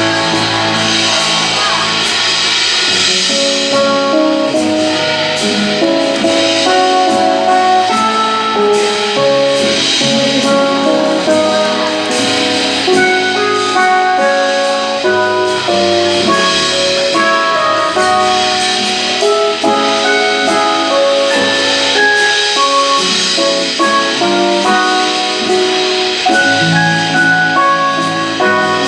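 Instrumental passage of a song: a melody of held notes over a steady beat, with no singing.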